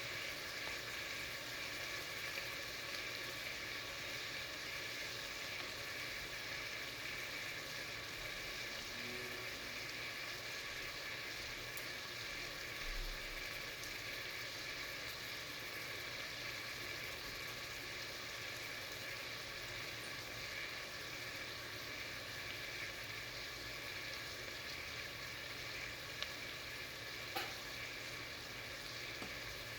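Food frying in hot oil in a pan: a steady, even sizzle, with a couple of small ticks near the end.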